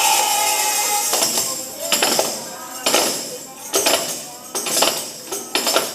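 Tambourines struck and shaken in irregular jingling hits, one or two a second, after a final held sung note dies away in the first second.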